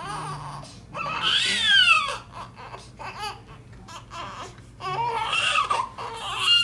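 Newborn baby girl, a few days old, crying while her neck is turned and adjusted: two strong wails, one about a second in and one near the end, each rising and falling in pitch, with shorter cries between them.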